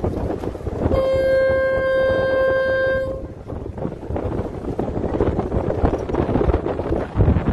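A boat horn sounds one steady blast of about two seconds, starting about a second in. Around it, wind buffets the microphone over the rush of the boat moving across choppy water.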